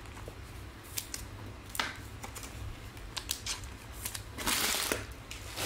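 Trading cards and plastic card holders being handled: scattered light clicks and taps, with a brief sliding rustle about four and a half seconds in, over a steady low hum.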